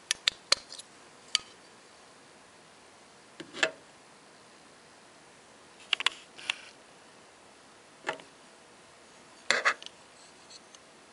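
Clicks and small metallic taps from an antique pocket watch's metal case being handled and its hinged covers opened: a quick run of clicks at the start, single clicks and a short scrape through the middle, and the loudest cluster of clicks near the end as a cover is opened to show the movement.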